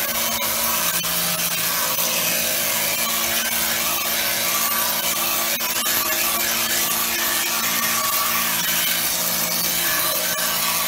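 Pressure washer running: the water jet hisses steadily against a painted canvas, over a steady hum from the machine.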